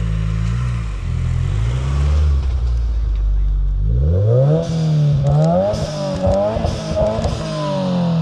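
A car engine running low and unevenly, then revved several times from about halfway through, its pitch rising sharply and falling back with each rev.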